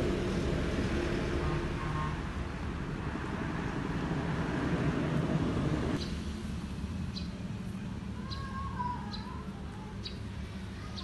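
Low, steady outdoor rumble of wind and distant road noise, which drops suddenly about six seconds in to a quieter ambience. In the quieter part, a bird gives several short high chirps and a brief warbling call.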